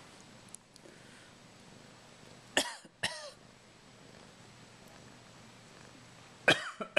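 A person coughing: two coughs about half a second apart, then another cough near the end.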